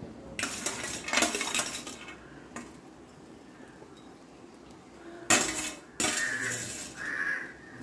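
A spoon scraping and clinking against a non-stick pan while fried cashews and raisins are spread over layered biryani rice, in a few short bouts with a quieter pause in the middle.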